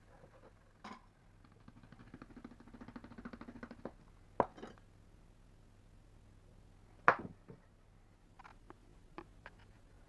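Hand sand-moulding work on a wooden moulding flask: a rapid patter of light taps for about two seconds, two sharp knocks, and a few soft clicks near the end, as sand is scooped in and powder is dusted over the mould from a small strainer.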